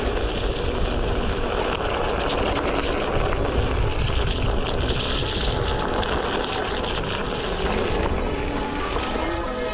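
An electric one-wheeled board rolling fast over a gravel trail: steady tyre noise on the loose surface with wind buffeting the microphone, and a faint steady high whine from the board's running.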